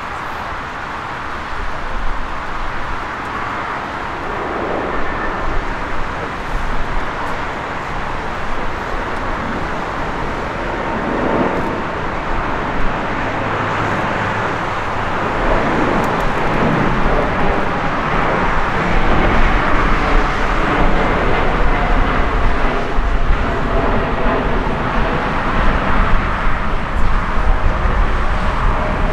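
Jet airliner engine noise, a steady rushing sound with a deep rumble that grows gradually louder.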